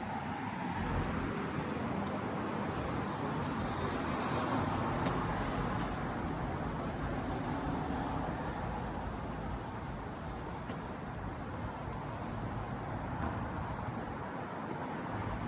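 Road traffic noise: the steady rush of a passing car or idling vehicle, swelling a little in the first few seconds, with a few faint clicks.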